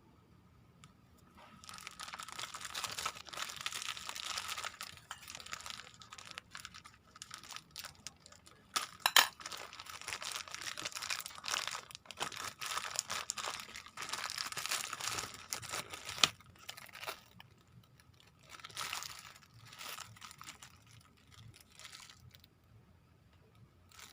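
Plastic parcel packaging crinkling and tearing as it is opened by hand, in long spells, with two sharp clicks about nine and sixteen seconds in.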